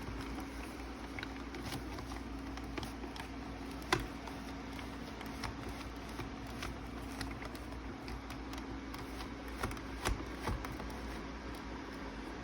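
Scattered small clicks and taps of plastic parts being handled and fitted on an animated Santa Claus figure under repair, the sharpest about four seconds in, over a steady low hum.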